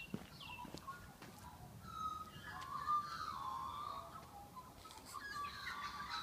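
Birds calling in an early-morning dawn chorus, several warbling calls overlapping and growing fuller from about two seconds in, with a few faint clicks at the start.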